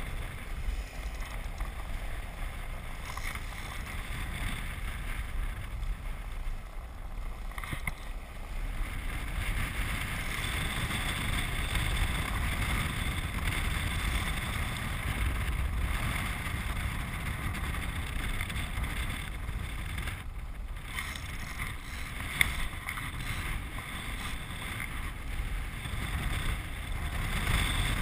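Land yacht sailing fast over hard dry lake bed: a steady rush of wind buffeting the microphone over the low rumble of the wheels rolling on the cracked playa surface, with one brief sharp knock about three-quarters of the way through.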